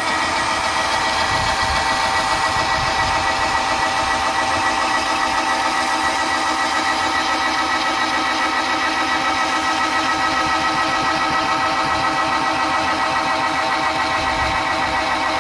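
A 12-volt DC gear motor with reduction gearbox turning a threaded rod to lower an automatic chicken coop door, running with a steady whine.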